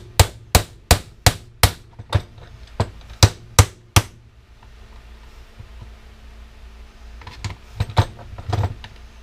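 Hammer blows on a stuck part inside a RYOBI electric pressure washer, knocking it loose to get at the brass. About ten quick strikes come in the first four seconds, then a pause and a few more knocks near the end.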